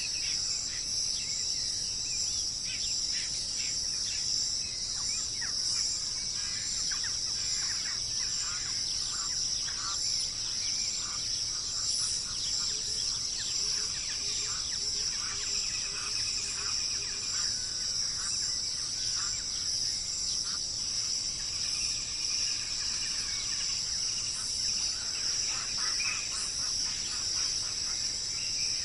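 A steady, high-pitched insect chorus, with many birds calling over it in short chirps and whistles, and a brief run of low, quick repeated notes about halfway through.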